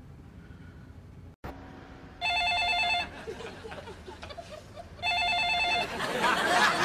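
A telephone ringing: two short warbling rings, each under a second, about three seconds apart. A louder rustling noise comes in near the end.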